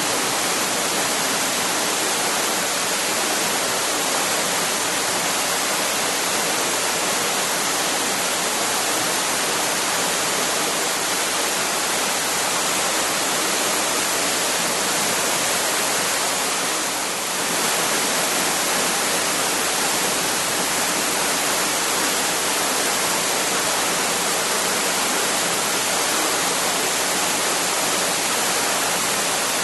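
Waterfall: a steady, even rush of falling water, dipping briefly a little past halfway.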